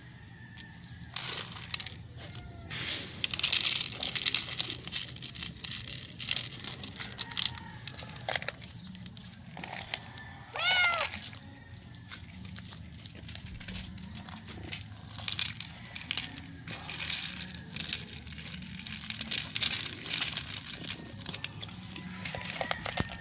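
Dry kibble rattling and clattering in a plastic tub as it is shaken and poured into a plastic dish, in two bursts of rapid clicks. A cat meows once, about halfway through.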